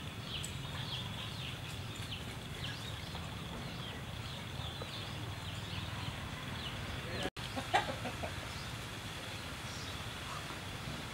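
Chickens: many short, high chirping calls a few times a second, then a few lower clucks after a split-second dropout about seven seconds in, over a steady low background rumble.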